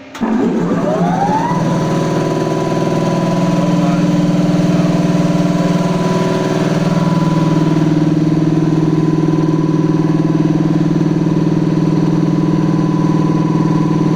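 Electric air compressor starting up: the motor comes on suddenly with a whine rising in pitch for about a second and a half, then runs at a steady speed with a loud, even mechanical hum.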